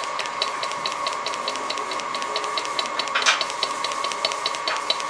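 TIG welding arc running along a steel sheet seam: a steady buzz with a fast, even ticking, and a louder crackle a little past three seconds in.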